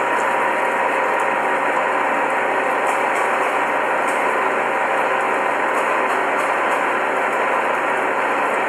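Spiral bevel gear cutting machine running, its bladed face-mill cutter head turning against a steel pinion as it cuts the spiral teeth: a steady mechanical running noise with a faint hum and a few light high ticks.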